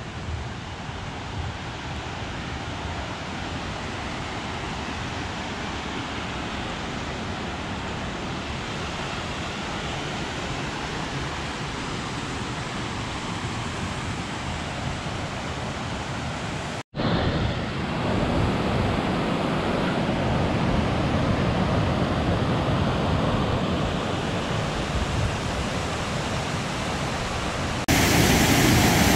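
Blakiston Falls: a waterfall rushing steadily down a rock gorge. It breaks off for a moment about 17 seconds in and comes back louder, then grows louder again near the end.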